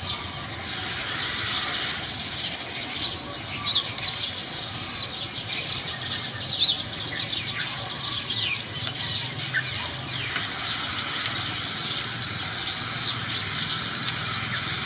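Many birds chirping, with short, quick calls overlapping one another, over a steady low hum.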